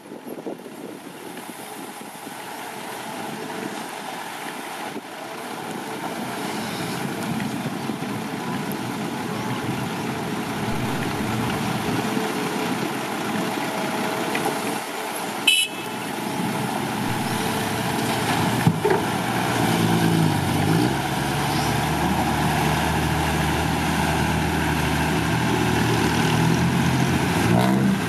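Six-wheel dump truck's diesel engine labouring under a load of soil, growing steadily louder, its steady drone becoming plain in the second half. A short horn toot about halfway through.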